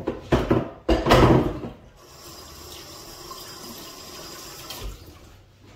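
An electric kettle heats water with a steady hiss. Before it, in the first two seconds, there is a louder, uneven rushing of water.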